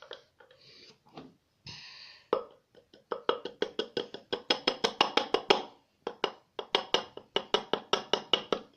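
Thick homemade flour-and-soap slime being stirred fast in a bowl with a stick, just as it begins to firm up: a run of quick wet plops and clacks, about five a second, with a short break a little after the middle.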